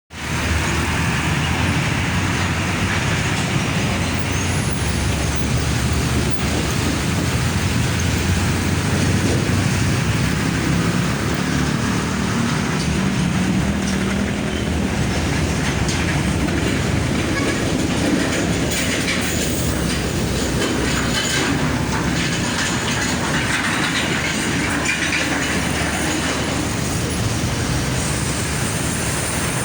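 Heavy trucks and semi-trailer rigs passing close by on a road, a loud, continuous low rumble of engines and tyres.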